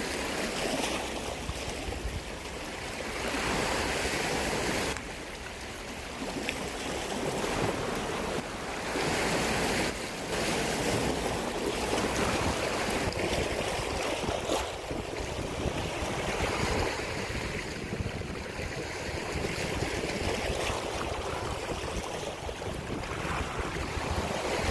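Sea waves washing against the shore, swelling and easing every few seconds, with wind buffeting the microphone.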